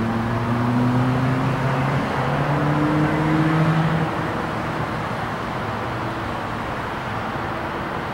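A motor engine drones, its low hum creeping slightly up in pitch and dropping away about four seconds in, over a steady rumbling noise.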